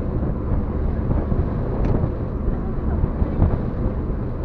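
Wind buffeting the microphone over a steady low rumble of the boat at sea.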